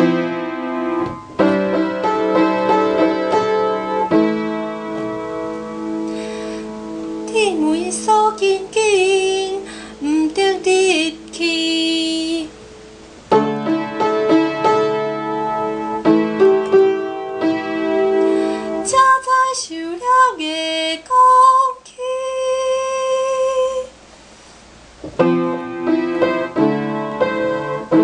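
Piano playing chords, accompanying a female voice that sings two phrases of long held notes with wide vibrato, about seven seconds in and again about nineteen seconds in; between and after the phrases the piano plays alone.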